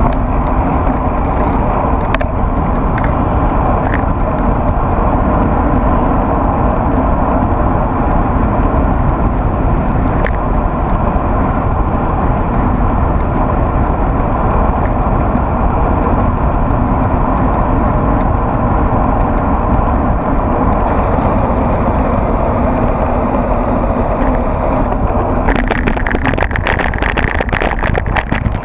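Steady rush of wind and road noise on a handlebar-mounted action camera during a fast bicycle descent. About three seconds before the end a burst of rapid rattling comes in as the bike runs over the bridge deck.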